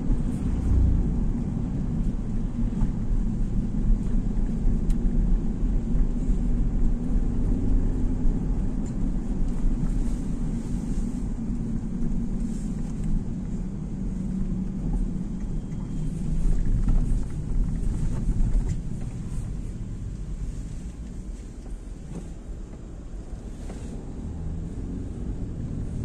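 Steady low rumble of a car on the move, engine and road noise, heard from inside the cabin.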